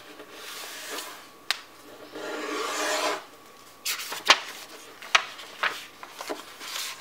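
A sheet of paper being folded and creased by hand on a tabletop: fingers slide and rub along the fold, then it gives several sharp crackles as the sheet is lifted and bent.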